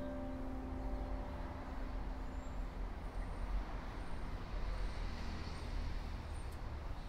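The last piano notes die away, leaving a steady low rumble with hiss.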